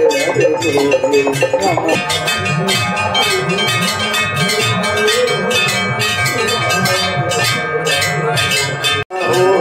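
Aarti bells ringing rapidly and continuously, strike after strike with the metal tones hanging on, over chanted aarti singing. The sound drops out for a split second near the end.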